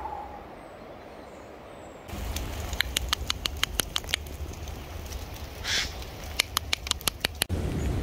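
A Eurasian jay gives one short, harsh screech about six seconds in, among a run of sharp, irregular ticks. Before that comes about two seconds of faint, steady forest background.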